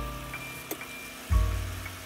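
Background music with deep bass notes struck about every one and a half seconds, and lighter sustained tones above them.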